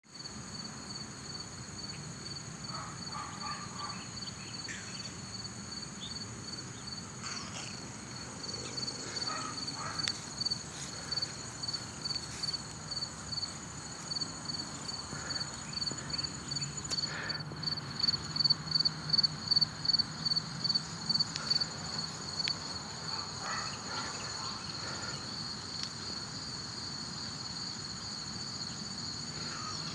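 Crickets chirping steadily outdoors in a high-pitched, even pulse of about three chirps a second, loudest around the middle, with a steady higher insect buzz above it.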